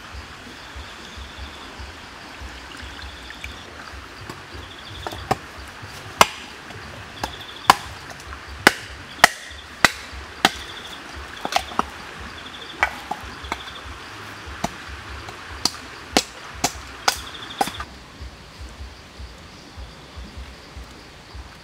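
A large knife chopping wood: about twenty sharp chops at an uneven pace, starting about five seconds in and stopping a few seconds before the end. Insects chirp in short, high trills throughout.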